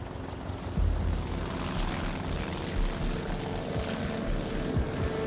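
Small aircraft's engine and propeller running after start-up, getting louder about a second in.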